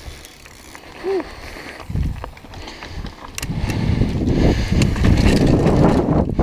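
Downhill mountain bike riding over rough dirt trail: tyres on dirt and gravel with the bike rattling and wind on the microphone, getting much louder from about three and a half seconds in as the ride picks up speed. A short pitched sound comes about a second in.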